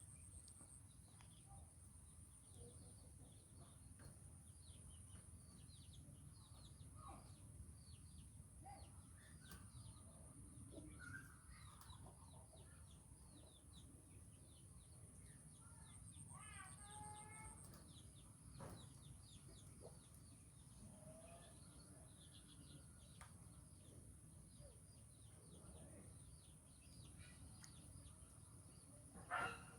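Faint yard sounds: village chickens clucking now and then among many small, quick bird chirps, over a thin steady high whine and a low rumble. A louder call comes near the end.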